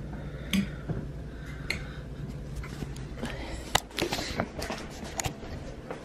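A low steady hum that fades out after about three seconds, followed by a scatter of light clicks and knocks from the camera being handled and turned around.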